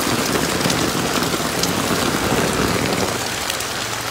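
Steady heavy rain falling on a large umbrella held over the phone and on the wet street, with many small drop clicks. About three seconds in a low car engine hum comes in faintly.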